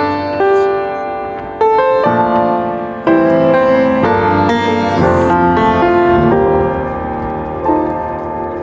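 Background music: a piano playing chords.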